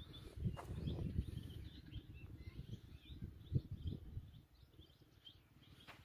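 Wind rumbling on a phone microphone outdoors, with a few dull thumps as someone walks over loose soil. Faint bird chirps can be heard in the background.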